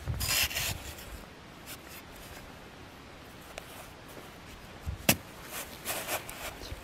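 Small hand spade chopping into dry soil and scraping dirt loose: a crunching scrape at the start, a sharp knock about five seconds in, then more short scrapes.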